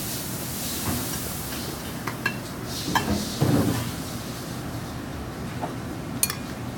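Metal tongs and a serving spoon clinking and scraping against a ceramic plate as stir-fried noodles are lifted out, with a few short sharp clicks and one duller knock about three and a half seconds in, over steady kitchen background noise.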